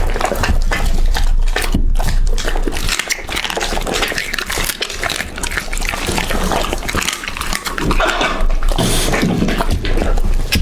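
Dog chewing and eating raw meat close to the microphone: a dense, continuous run of wet smacks and clicks.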